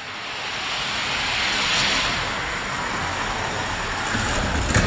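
Several die-cast toy cars rolling fast down orange plastic track, a steady rushing rumble that swells over the first couple of seconds and holds. Near the end there is a sharp knock as the cars reach the finish.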